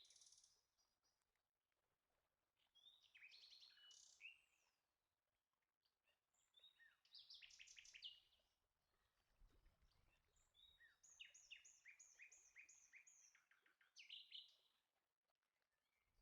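A songbird singing faintly in several short phrases of quick, repeated chirping notes, with pauses between phrases.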